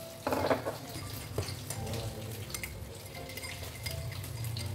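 A spoon stirring tea in a drinking glass, with scattered light clinks of metal on glass and one louder knock near the start.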